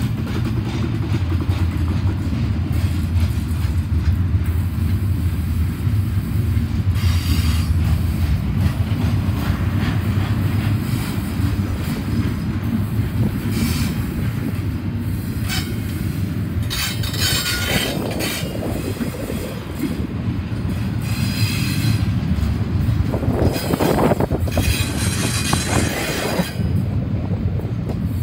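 Double-stack intermodal container train's well cars rolling past: a steady low rumble of steel wheels on rail, broken several times by bursts of high wheel squeal.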